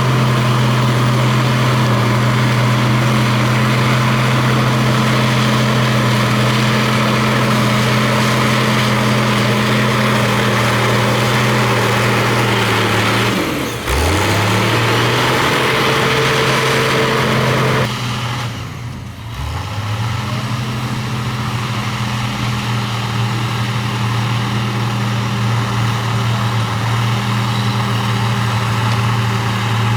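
Heavy diesel engine of an earthmoving machine running hard and steadily. About halfway through its pitch drops sharply and climbs back up, and a few seconds later it does so again.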